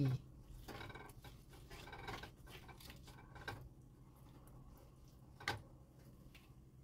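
Faint scraping and stirring of a slotted spatula through green beans in a frying pan of coconut-milk stew, with two light taps about three and a half and five and a half seconds in, over a low steady hum.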